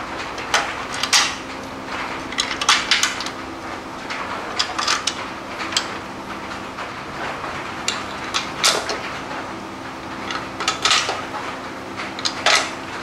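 Irregular metal clinks and clunks as a steel-and-rubber motor mount and its bolts are handled and set into place on a steel truck frame crossmember, about a dozen sharp knocks in all, over a steady low hum.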